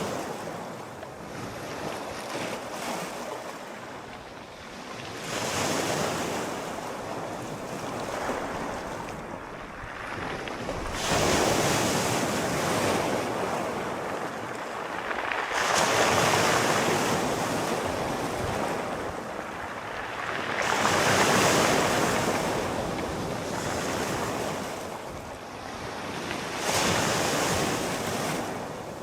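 Sea waves breaking and washing up on a shore, rising and falling in slow surges about every five seconds, with a steady hiss of surf between them.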